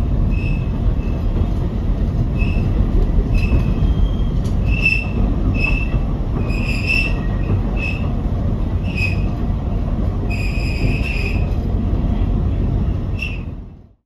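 Alishan Forest Railway narrow-gauge train running on a curve, heard from inside a carriage. A steady low rumble carries short, high wheel squeals that repeat every half second to a second. It all fades out near the end.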